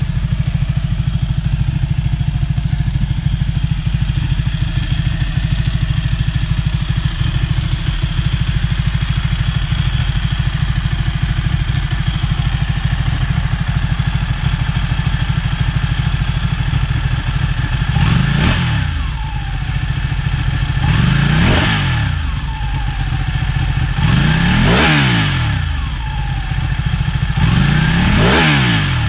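2012 Ducati Panigale 1199 S's Superquadro L-twin engine running through a full titanium Termignoni exhaust, idling steadily in neutral. In the second half it is blipped four times, about three seconds apart; each rev rises quickly and drops back to idle.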